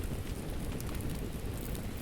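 Steady rain with a wood fire crackling, a low even rumble under scattered small pops and ticks.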